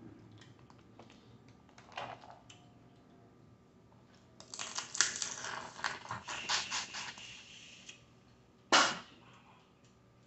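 Boiled crawfish being peeled and eaten by hand: scattered small shell cracks and clicks, then a run of wet, crackly sucking and chewing from about four and a half seconds as a crawfish is held at the mouth, and one loud sharp crack near the end.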